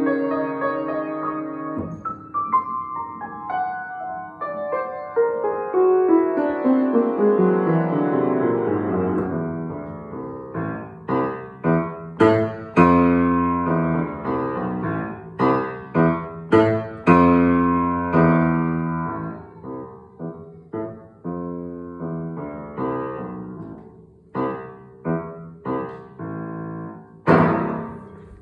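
Piano playing a short piece: a held chord, then a long run of notes stepping steadily downward, then a string of short detached chords, ending on one sharp accented chord near the end.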